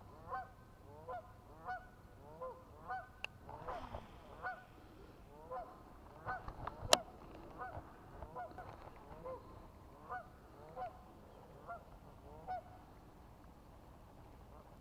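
Geese honking over and over, a little more than one honk a second, each call rising and falling in pitch. One sharp click stands out about seven seconds in.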